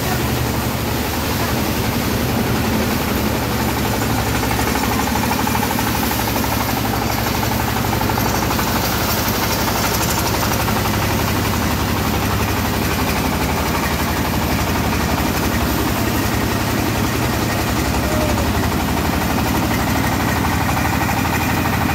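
Engine-powered paddy threshing machine running steadily: a constant low engine drone under a dense rushing noise from the threshing drum.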